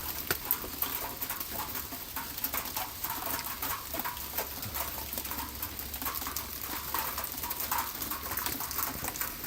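Pieces of melting ice and water drops falling out of ice-coated trees, a dense, irregular pattering of small ticks and clicks.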